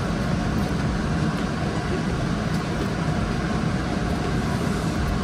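A steady, even, low rushing noise with no breaks or strikes.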